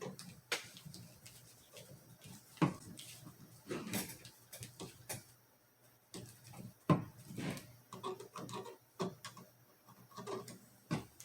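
Scattered clicks and knocks of a Remington 597 rifle being handled and put back together in its stock, with its screws being tightened.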